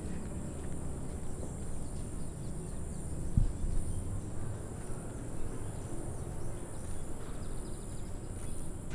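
Steady high-pitched drone of insects with a low rumble underneath and a single thump about three and a half seconds in.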